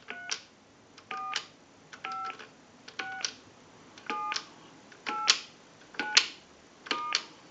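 Single-slot payphone's touch-tone keypad being dialed one digit at a time: a short two-tone beep about once a second, each followed by a sharp click of the key. The digits are being run through one by one to check the keypad.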